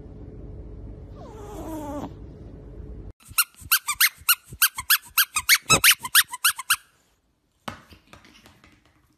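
A sleeping pug puppy gives a soft whimper that falls in pitch. Then comes a quick, loud run of short high-pitched squeaks, about four a second for some three seconds, followed by a single knock and a few light taps.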